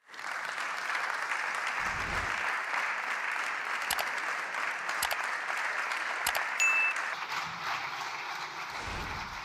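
Applause from deputies in a parliament chamber: many hands clapping steadily as a speech ends. A short high beep sounds about two-thirds of the way through.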